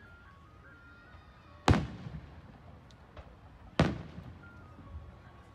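Aerial firework shells bursting: two sharp booms about two seconds apart, each trailing off in a rumbling echo.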